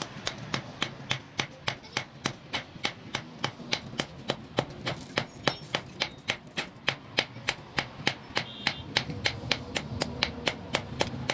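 Hand hammer striking a red-hot sickle blank on a steel anvil in a steady rhythm, about three to four blows a second, as the blade is forged.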